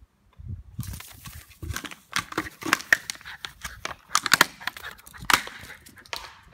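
An empty plastic 500 ml Coca-Cola bottle crackling and crunching as a small terrier bites it and carries it in its mouth. The crackles come irregularly and fast.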